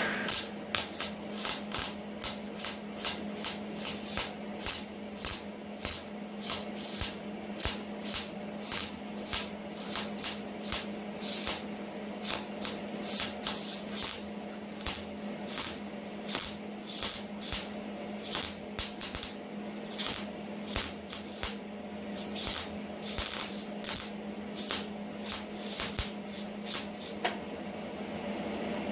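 Hobart Handler MIG welder laying short stitch or tack welds: repeated crackling bursts of the arc, roughly one to two a second, over a steady electrical hum that stops with the welding near the end.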